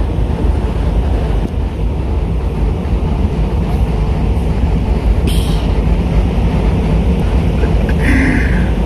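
Steady low rumble of a stopped rail-laying work train with its DF4B diesel locomotive idling. A short hiss comes about five seconds in and a brief higher squeal near the end.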